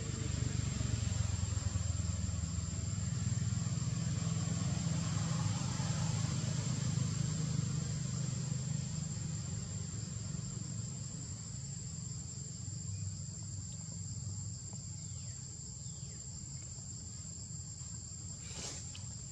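Steady high-pitched drone of insects, under a low engine rumble that is loudest in the first half and slowly fades. There is a single sharp click near the end.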